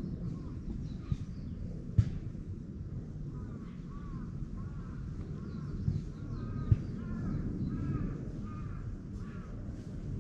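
A crow cawing in a quick run of short calls, about two a second, from about three seconds in until near the end, over a low, steady background rumble. A few faint higher bird chirps come at the start.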